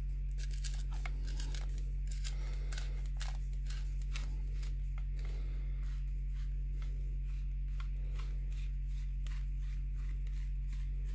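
Tongue-and-groove pliers turning a PVC screw cap loose on a plastic filter tube: a run of irregular sharp clicks and creaks from the plastic threads and the pliers' jaws. A steady low hum runs underneath.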